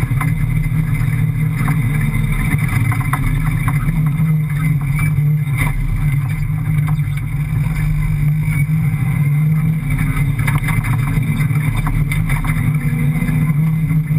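5.7-litre Hemi V8 engine of a rally car running hard, heard from inside the stripped cabin, with the note wavering a little as the car works over sand dunes. Frequent rattles and knocks from the bodywork and fittings over the bumps.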